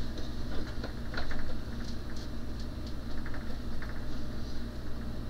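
Scattered light clicks and scrapes from a plastic component-drawer cabinet being held and shifted against a pegboard, over a steady low hum.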